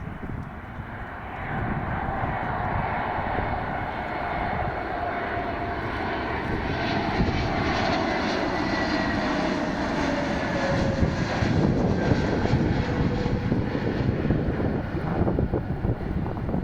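Airbus A321neo (A321-271NX) jetliner on landing approach passing close by, its Pratt & Whitney PW1100G geared turbofans running with a rumble and a whine. The rumble grows louder a second or two in, and the whine falls in pitch in the middle as the jet goes past.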